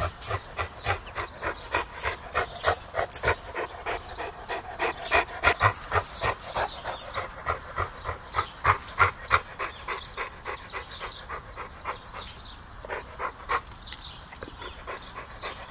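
A large dog panting, about three quick breaths a second, dropping lower for a few seconds past the middle before picking up again.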